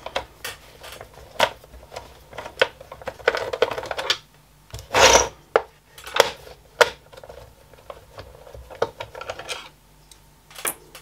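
Plastic clips and case edges of a small projector clicking and creaking as the housing is prised apart by hand, with a louder snap about five seconds in.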